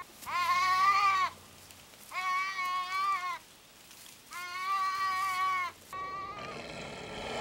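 A sheep bleating in distress as wolves bite into it: three long bleats of about a second each, then a short one about six seconds in. Near the end, a rough, noisy sound.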